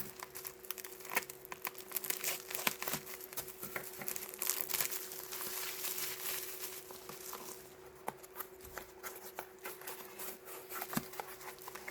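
Packaging being unwrapped by hand: crinkling and rustling with irregular crackles and some tearing, densest in the middle.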